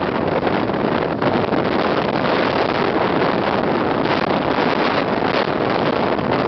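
Storm surf on the Baltic Sea with strong wind buffeting the microphone: a loud, unbroken rush.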